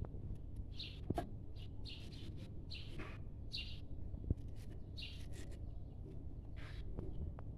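Small birds chirping in short, high-pitched calls, one or two a second, over a steady low background rumble.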